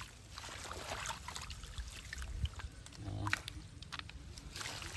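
Light water splashes and drips from a hand dipping into a shallow pond among water lettuce, with scattered small clicks and a brief low sound about three seconds in.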